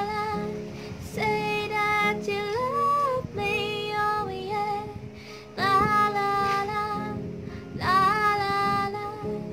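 A woman singing a slow song in phrases of held notes, accompanying herself on an acoustic guitar.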